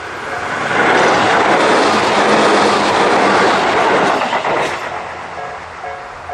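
A train passes over the level crossing: its running noise swells to a loud rush about a second in and dies away by about five seconds, drowning out the crossing's electronic warning bells, which ring in a steady repeating pattern before and after.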